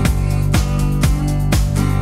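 Music with a steady beat, about two beats a second, over a sustained bass line.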